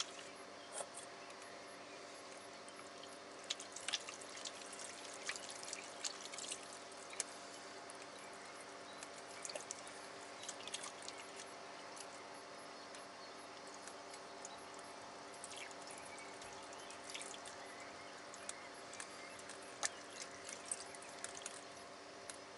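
Water trickling from a hand sprayer into a stainless-steel sink bowl as hands are washed under it, with many small splashes and drips. A steady hum runs underneath.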